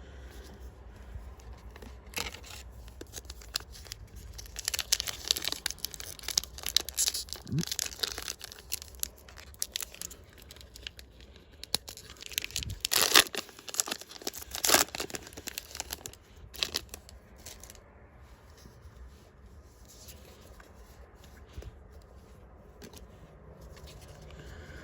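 Foil wrapper of a trading-card booster pack being torn open and crinkled, with bursts of crackling through the first two-thirds, loudest about halfway through, then quieter handling.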